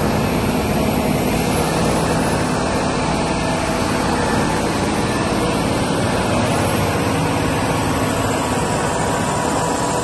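Diesel engines of heavy Volvo tipper trucks running steadily under load as they slowly tow an oversized load.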